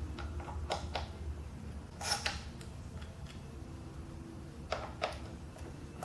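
A few light clicks and clinks of hand tools working the Torx screws of a motorcycle's primary cover, spaced irregularly over a low steady hum.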